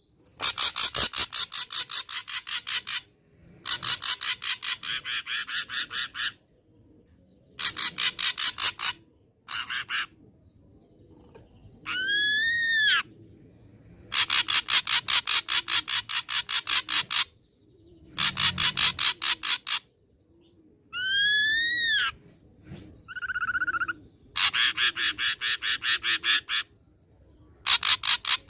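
Ashy drongo singing: repeated runs of rapid harsh, rasping notes, about seven a second, each run lasting two to three seconds. Twice a single arched whistle, rising then falling, comes between the runs.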